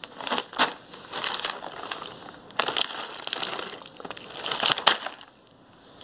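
Plastic snack packets crinkling and rustling as they are handled and sorted by hand, in a run of crackly rustles that dies down about five seconds in.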